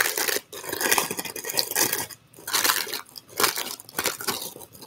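Plastic packaging crinkling and rustling in irregular bursts as an item is handled.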